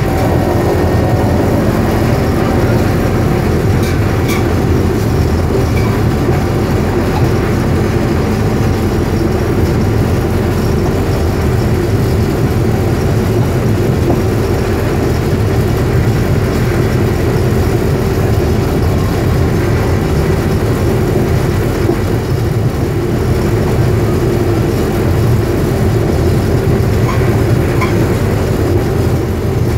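Rail vehicle's engine running steadily as it rolls along the track, with a continuous low rumble and a steady hum.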